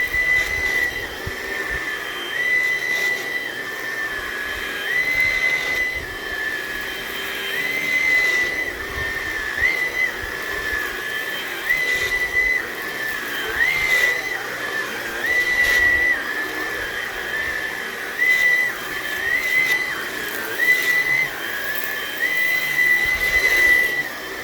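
Hoover ONEPWR Blade cordless stick vacuum running, with a high motor whine that dips slightly in pitch and jumps back up every second or two as the cleaner head is pushed back and forth over carpet.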